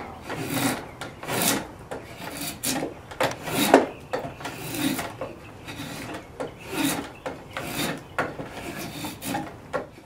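Two-handled curved drawknife shaving a cedar stave clamped in a shaving horse: a run of short scraping cuts, roughly one to two strokes a second.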